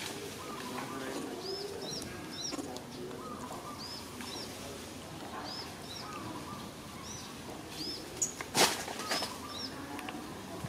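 Birds calling over and over: short, high, arching notes, often in pairs, about once a second, over fainter lower calls. A single sharp knock about nine seconds in is the loudest sound.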